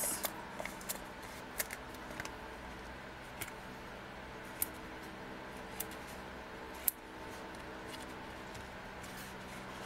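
Faint, scattered small clicks and taps as foam adhesive dots (Stampin' Up Dimensionals) are peeled from their sheet and pressed onto the corners of a cardstock panel, over a steady low hum.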